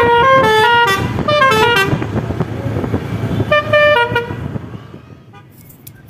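Telolet horn playing a quick tune of short, stepped notes in two runs, the second ending about four seconds in, over road and engine noise.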